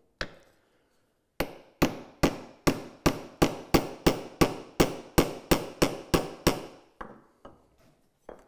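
Small steel hammer tapping steel roll pins into drilled holes in a wooden cam-clamp shoe. A single tap, then a steady run of about a dozen sharp metallic taps, two or three a second, each with a short ring, growing lighter near the end.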